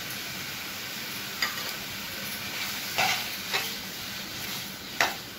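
Mutton pieces sizzling in oil in an aluminium pressure cooker while a metal spoon stirs them, scraping and knocking against the side of the pan four times.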